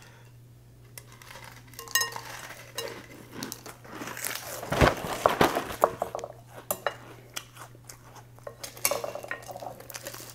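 Metal spoon clinking and scraping against a glass bowl as dry cereal is stirred and scooped, with the cereal rattling in the bowl in irregular bursts.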